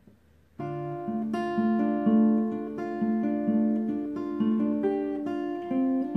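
Steel-string acoustic guitar played fingerstyle: a picked pattern of single notes that ring over one another, starting suddenly about half a second in.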